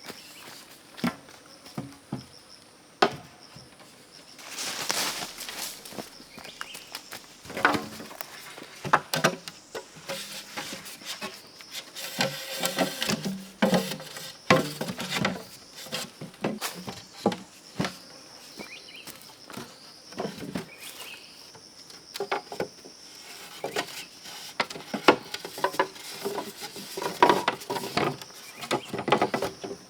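Irregular wooden knocks, clicks and rustling, such as bamboo being handled or cut, over a steady faint high insect drone.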